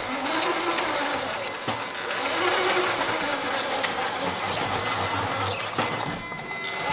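Radio-controlled King Hauler dump truck driving, its electric drive motor and gearbox whirring steadily, with a faint wavering whine in the first couple of seconds.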